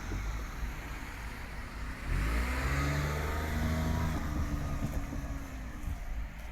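A train at a level crossing; about two seconds in, a louder engine sound sets in, rising in pitch at first, then holding steady until near the end.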